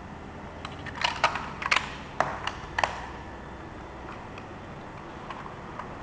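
A quick run of sharp hard-plastic clicks and knocks, about eight between one and three seconds in, as a small toy RC stunt car and its remote control are handled.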